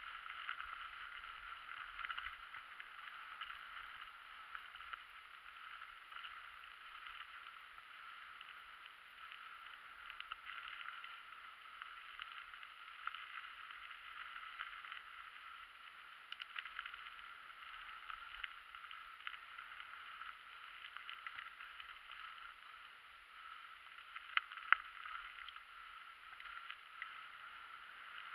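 Mountain bike rolling over a rocky dirt trail, muffled as if through a camera housing: a steady hiss from the tyres with small irregular knocks and rattles, and one sharper knock near the end.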